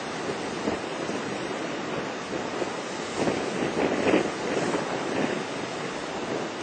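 Steady rushing noise of wind on the microphone outdoors, swelling a little about halfway through.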